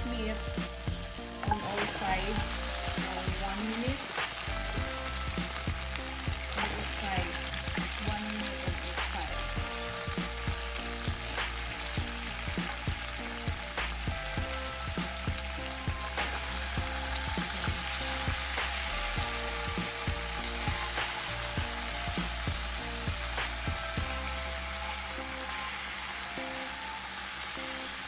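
Soy-braised chicken drumsticks frying in hot oil and garlic in a nonstick pan: a steady sizzle that jumps up about two seconds in as the meat goes into the oil. Short clicks and knocks come through it as the pieces are set down and turned with a wooden spatula. This is the second, browning stage of chicken adobo.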